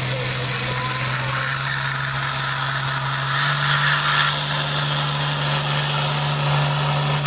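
International Harvester farm tractor's diesel engine held at full throttle under heavy load as it drags a weight-transfer pulling sled, a steady, unbroken drone. A rushing hiss rises over it about a second in and grows louder midway.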